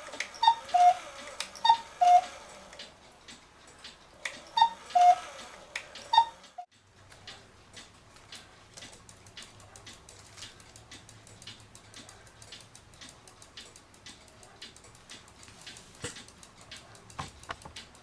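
Citizen battery cuckoo clock calling, each call a falling two-note 'cuck-oo'. Two calls sound, a pause, then two more, and after that the movement ticks steadily with a few knocks near the end.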